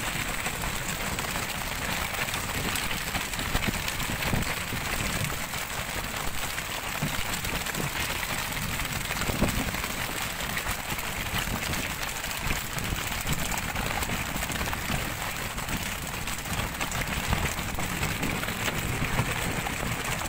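Steady rushing noise of wind and sea aboard a pole-and-line tuna fishing boat, with scattered light knocks and patters.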